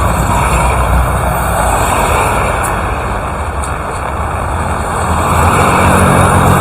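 Heavy rain falling steadily, easing slightly midway and building again toward the end.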